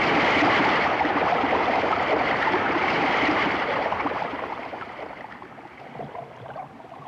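Underwater sound effect of rushing, churning water as a school of fish streams past, loud at first and fading away over the last few seconds.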